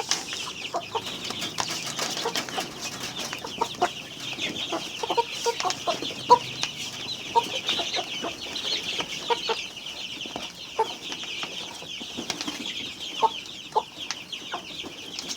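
A flock of chickens calling all together with many short, high peeps and scattered lower clucks while they feed, mixed with many short sharp taps.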